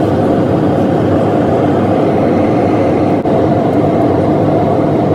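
Steady engine and air noise inside the cabin of a Southwest Airlines Boeing 737 in flight, heard through a phone. It breaks briefly about three seconds in.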